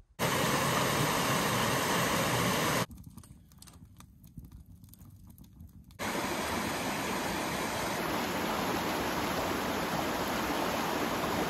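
Fast-flowing creek rushing over rocks, a steady hiss of running water. It drops away about three seconds in to a much quieter stretch with a few faint clicks, then returns about six seconds in.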